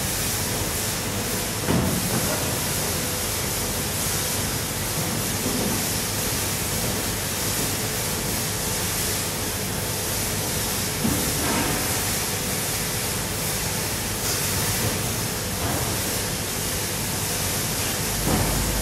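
Optical colour sorter running a batch of washed PET flakes for polymer sorting: a steady rushing hiss with a faint hum, and three short knocks spread through it.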